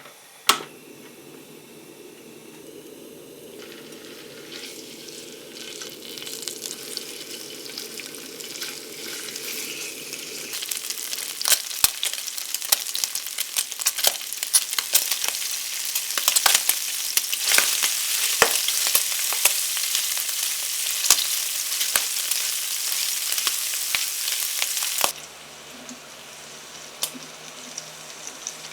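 Food frying in a pan, a sizzle that grows steadily louder, with many sharp pops and clicks through its louder part. The sizzle cuts off suddenly near the end, leaving a fainter hiss.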